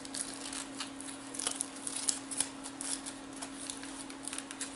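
Foil wrapper being peeled and crinkled off a chocolate surprise egg by small hands: irregular light crackles and ticks.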